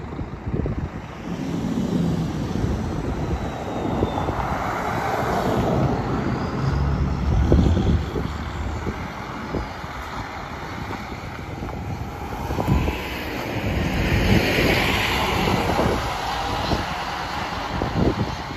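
Route bus engine running as the bus pulls through an intersection and drives past, the engine hum and tyre hiss growing louder as it comes close, about three-quarters of the way through, then fading as it moves off. Wind buffets the microphone throughout.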